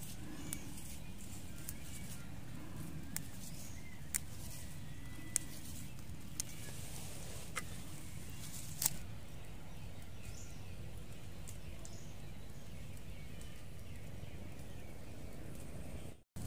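Basil leaves being picked off their sprigs by hand: scattered small snaps and rustles, mostly in the first half, over a steady low rumble.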